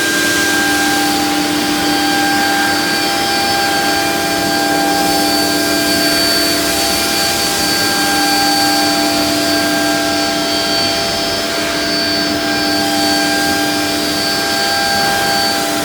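ELE2128ATC CNC router's spindle running steadily at speed: a constant whine of several steady tones over an even hiss.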